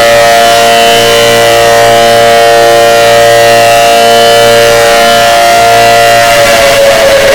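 Loud tornado warning siren sounding a steady alert tone, a chord of several pitches held level. Near the end it begins to wind down, its pitch falling.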